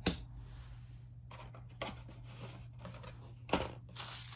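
A hard plastic miniature base being set down on a wooden table with a sharp clack, then a few light clicks of plastic being handled and a louder knock about three and a half seconds in.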